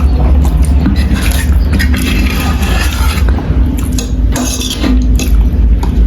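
Cutlery clinking against a dish while someone eats, in short scattered clicks, over a steady low rumble.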